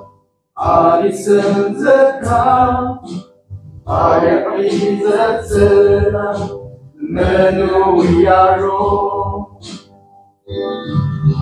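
A group of men singing together unaccompanied, reading the words from sheets, in sung phrases broken by short pauses about every three seconds.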